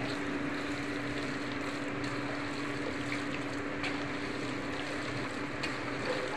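Steady machine hum with a constant low tone over a hiss, and a few faint clicks from hands mixing chicken pieces in masala in a steel bowl.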